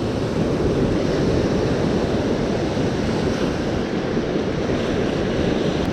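Ocean surf washing on the beach, a steady rushing noise, with wind buffeting the microphone.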